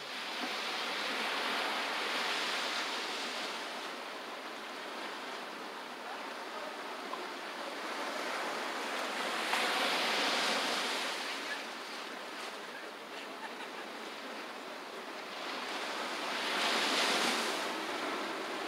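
Ocean surf breaking and washing up a sandy beach. It swells three times, about seven seconds apart, over a steady wash of water.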